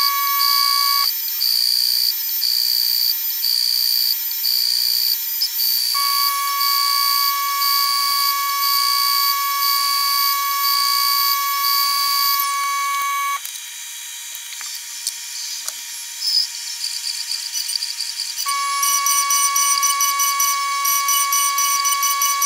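Pocket NC v2-50 desktop five-axis mill cutting an aluminium housing, its sound played at twenty times speed so it becomes a loud, steady, high-pitched whine of several tones. The tones change as the cut changes, and the sound drops to a quieter stretch about halfway through.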